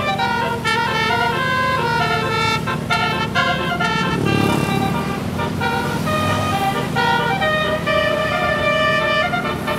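Tour bus 'telolet' air horn (a multi-note basuri horn) playing a quick melody, its notes changing several times a second, over a steady low engine drone. A brief low rumble swells up about halfway through.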